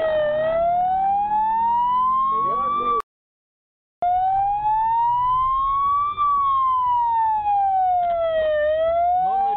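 Police car siren sounding a slow wail, its pitch sliding steadily up and down over several seconds, heard from the pursuing patrol car with engine and road rumble beneath. It cuts out completely for about a second at an edit near the middle, then resumes.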